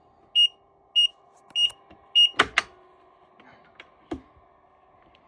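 Apple screen removal machine sounding its error alarm: a short high beep about every 0.6 s, four times, signalling error code E05. The beeping stops a little over two seconds in, and is followed by two sharp clicks and a knock over a faint steady hum.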